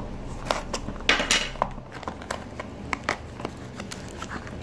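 A knife slicing through the seal of a small cardboard box, with one longer rasping cut about a second in, then scattered clicks and crinkles as the cardboard flaps are pulled open and the wrapped part inside is handled.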